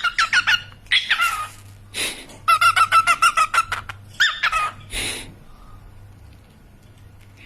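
Cockatiels chirping in quick series of short whistled calls, with a fast run of repeated chirps in the middle and a few short, harsh noisy bursts among them; the calls stop after about five seconds.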